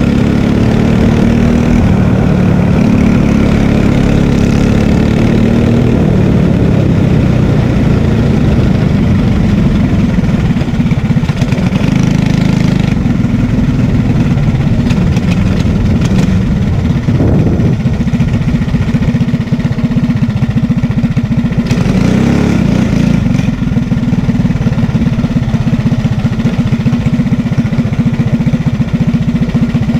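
Racing kart engine heard from on board, its note easing off as the kart slows, then settling into a steady idle.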